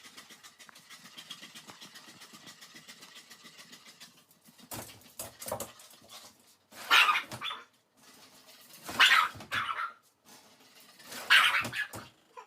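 A dog barking: about four loud barks spaced roughly two seconds apart in the second half, after a few seconds of faint, quick, even pulsing.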